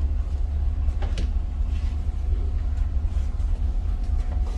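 Steady low rumble and hum of a passenger ferry's engines underway, heard on board, with a few faint clicks.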